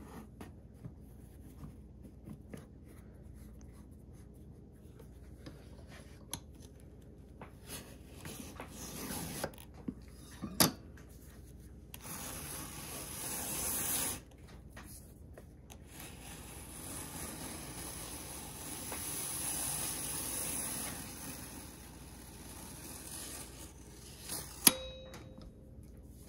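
Leather strip drawn through a roller machine whose rotary cutter shaves a thin strand off it, rubbing and scraping in two long passes. Light clicks come from the mechanism, and a sharp knock sounds near the end.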